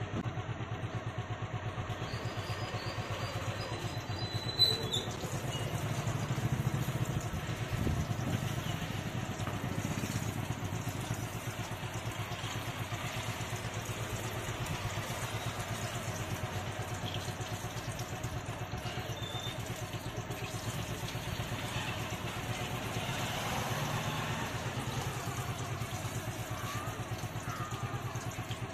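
A machine running steadily with a fast, even low pulse, and a sharp clatter about five seconds in.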